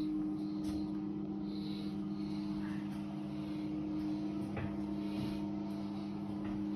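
A steady low electrical hum holding two constant tones, with a few faint clicks.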